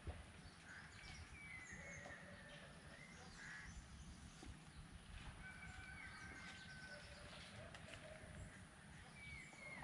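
Faint outdoor ambience: a low steady rumble with several short, thin bird calls scattered through it, a few of them sliding slightly in pitch.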